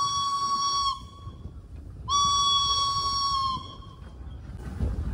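Steam whistle of steam locomotive B 5112 blowing two blasts: one that cuts off about a second in, then a second blast of about a second and a half, each a single steady tone. A brief hiss near the end, over the low rumble of the moving train.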